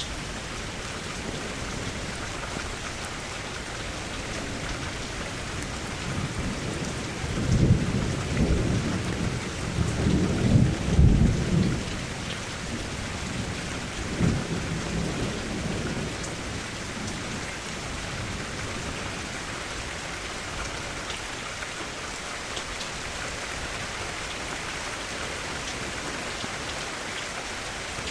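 Thunderstorm: steady heavy rain with a long rolling peal of thunder that swells about a quarter of the way in, with its loudest cracks around the middle of that peal, then a shorter, fainter rumble a few seconds later.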